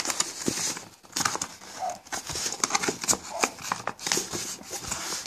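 Cardboard smartphone box being handled and its inner box slid out of the sleeve: irregular rustling and scraping of card with light knocks and clicks.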